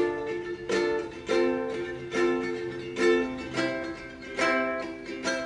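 Ukulele strummed in a repeating pattern of chords, each strum ringing out, with the chord changing every few strums.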